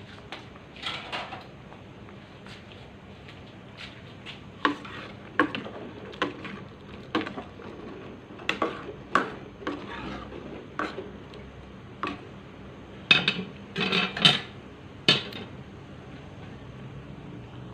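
Metal ladle stirring a simmering curry in an aluminium pot, clinking and knocking against the pot's side in a string of separate strikes, with a quicker, louder run of knocks near the end.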